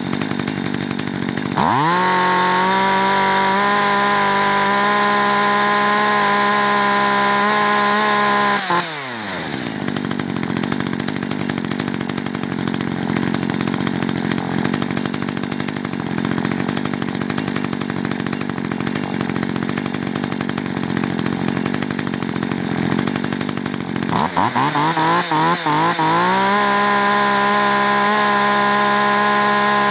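Two-stroke chainsaw engine idling at about 5,300 rpm, revved to full throttle about two seconds in and held steady at around 12,200 rpm for about seven seconds, then gliding back down to idle. About six seconds before the end it is revved again, climbing unevenly in pitch before holding steady at full revs.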